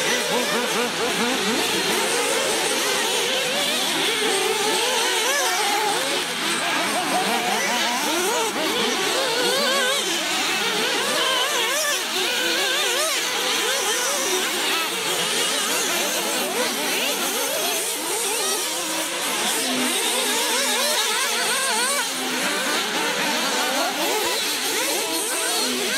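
Several radio-controlled off-road racing buggies running around a dirt track, their small engines revving up and down over each other continuously.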